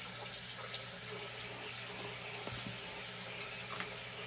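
Bathroom sink tap running steadily, water splashing into the basin, with a few light knocks.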